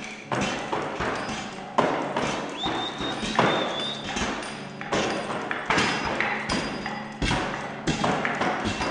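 Irregular knocks and thuds, a few a second, with a high steady tone that wavers briefly about three seconds in.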